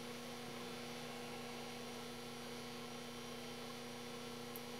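A steady electrical hum with a faint hiss underneath: room tone.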